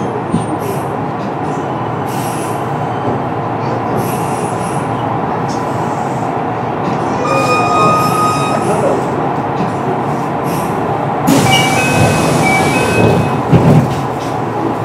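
Kintetsu 9820 series electric train with Mitsubishi IGBT-VVVF drive running along the line: a steady rumble of wheels on rail. Short high-pitched tones sound from about eleven seconds in, with a few thumps near the end.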